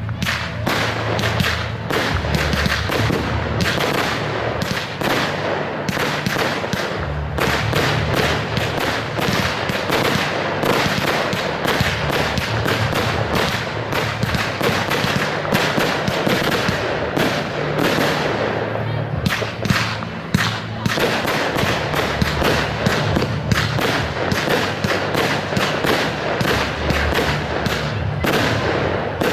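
Fireworks display: a dense, continuous barrage of bangs and crackling from many shells bursting in quick succession, several reports a second.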